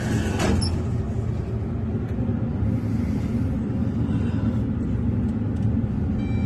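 Elevator car interior: a steady low rumble of the lift running, with a single knock about half a second in. A short electronic beep sounds near the end.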